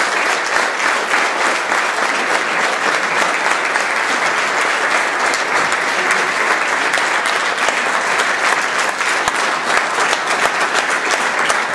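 Audience applauding: many hands clapping in a dense, steady wash that holds at the same level throughout.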